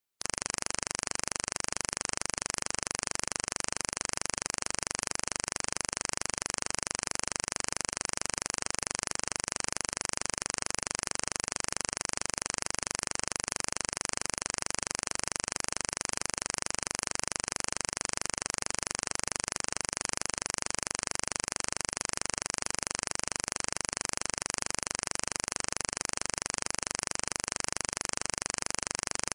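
Steady hiss like static or white noise. It cuts in abruptly just after the start and holds at one unchanging level, strongest in the high treble, with no beat, tune or separate sounds.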